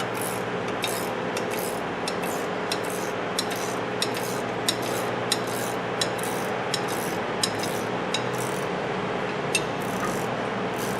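Wrench working a rusted fastener on the front strut: short rasping strokes about two a second over a steady mechanical hum.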